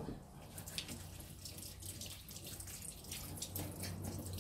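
Faint running water, like a tap running into a sink: an uneven, splashy hiss over a low steady hum.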